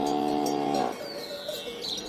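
Cow mooing: one held call that stops just under a second in.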